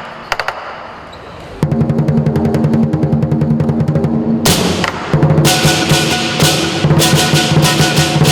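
Southern lion dance percussion: a big lion drum breaks into a rapid roll about a second and a half in, after a few soft clashes, and from about five seconds in cymbals and gong crash along with it on the beat.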